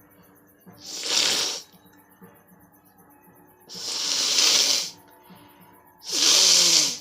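A person blowing their nose hard three times, each blow a rush of air through the nose lasting about a second.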